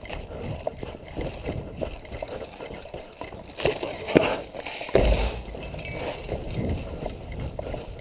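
Hurried footsteps on snow, gravel and concrete rubble, picked up by a helmet-mounted camera, with a heavy thump about five seconds in.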